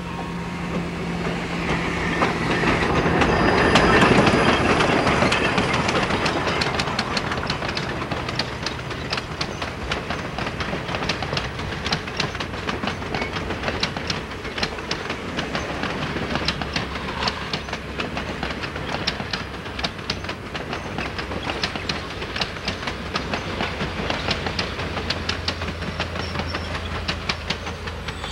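Oregon Pacific & Eastern No. 19, a Baldwin 2-8-2 steam locomotive, passing close with its passenger train, loudest about four seconds in. Then the passenger cars' wheels click rapidly over the rail joints as the train rolls away.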